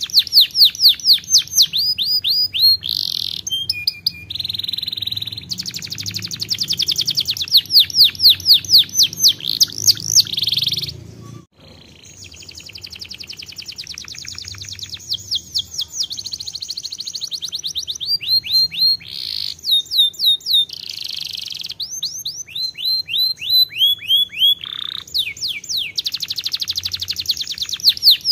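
Domestic canary singing a long song of fast trills: runs of rapidly repeated sweeping notes alternating with buzzy rolls, broken by a short pause about eleven seconds in.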